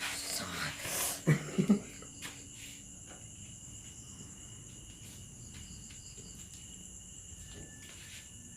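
Crickets chirring in a steady high-pitched chorus. A few brief rustles and knocks come in the first two seconds.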